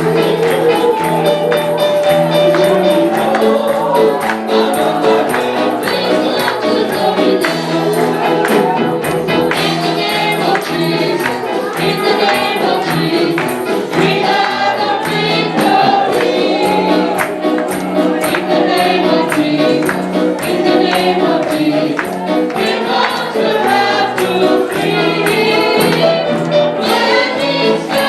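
Gospel worship music: a group of voices singing together over an accompanying band, with a tambourine shaking on the beat.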